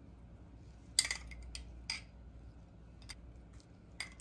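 A metal spoon clinking against a small glass bowl several times while spooning out sauce and parsley. The sharpest clink comes about a second in and another follows just under a second later, with fainter ticks after.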